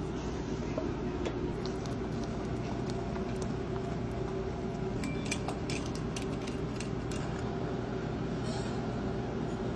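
Small electric crucible melting furnace running with a steady electrical hum, while metal is heated in it. A few light metallic clicks come about halfway through.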